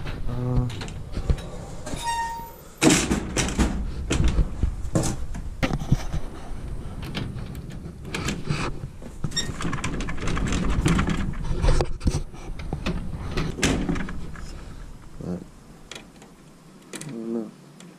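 Metal clunks, knocks and rattles from a snack vending machine as its door is shut and the newly fitted door lock is worked with a key. The loudest knock comes about three seconds in.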